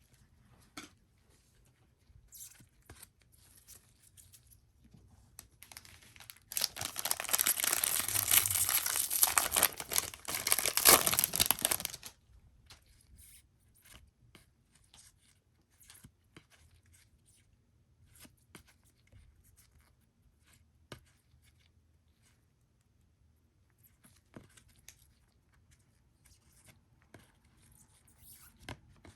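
Wrapper of a 2022 Topps Series 1 baseball card pack being torn open: a loud tearing and crinkling that lasts about five seconds. Soft clicks and rustles of cards being handled come before and after it.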